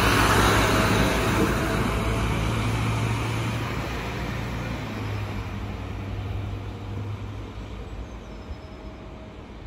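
Alstom Coradia LINT diesel railcar passing close and pulling away. It is loudest about a second in with a rush of wheel and air noise, then its low engine drone fades steadily as it recedes.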